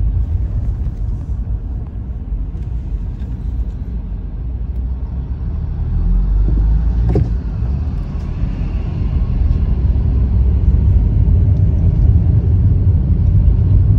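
Car cabin noise in slow stop-and-go traffic: a steady low rumble of the car's engine and tyres, heard from inside the car.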